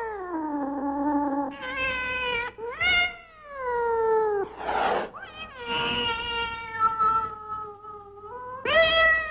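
Cats yowling: a run of long, drawn-out caterwauls, several overlapping, most sliding down in pitch, with a short noisy burst about five seconds in.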